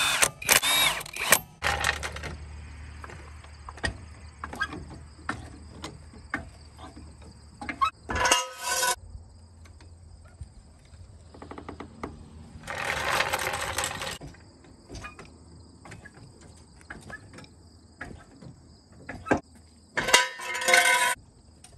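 Cordless 1/2-inch impact wrench hammering in short bursts, snugging the lug nuts on a camper trailer wheel. It is followed by a low hum, scattered clicks and clanks, and three louder noisy bursts as the trailer is lowered on a floor jack.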